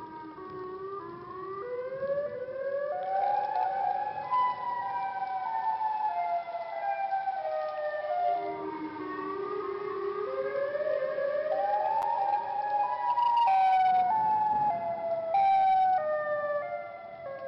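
Eerie electronic tones stepping up in pitch and back down in a slow, siren-like cycle about every eight or nine seconds, with two short noisy bursts near the end.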